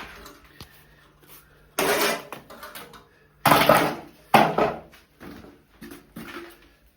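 Building work: three loud scraping, clattering strokes of hand tools on hard material, about two, three and a half and four and a half seconds in, with fainter knocks between.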